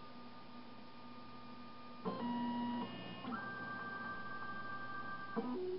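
Darex XPS-16 CNC drill sharpener's motors whining steadily as the machine runs its diameter-check cycle on a gauge pin. The pitch steps to a new note about two seconds in and again a little over three seconds in, as the mechanism moves, then the sound cuts off near the end.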